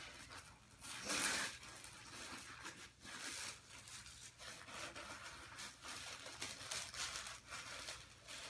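Tissue paper rustling and crinkling as it is unfolded and lifted out of a box, in several irregular bursts, the loudest about a second in.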